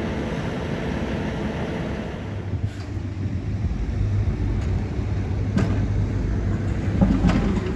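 A large engine running steadily, its low hum growing stronger a couple of seconds in, with a few sharp knocks about 3 s, 5.5 s and 7 s in.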